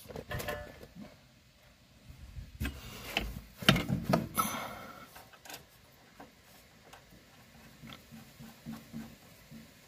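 Handling noise from a metal brake line and its adapter fitting: irregular clicks, taps and rubbing as the flared pipe end is worked into the adapter by hand, busiest a few seconds in and sparser near the end.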